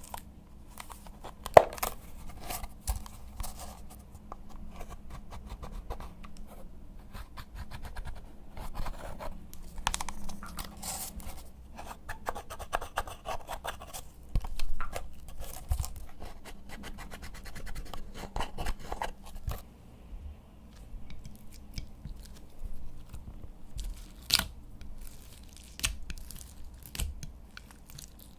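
Hands stretching, pulling and kneading slime, with irregular sticky crackling, tearing and popping sounds, a sharp click about a second and a half in, and a quieter stretch about two thirds of the way through.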